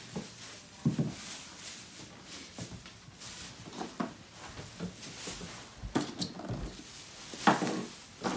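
Hollow plastic toy fruit being handled and dropped into a thin plastic bag: scattered light knocks and rustling, with the loudest knocks about a second in and near the end.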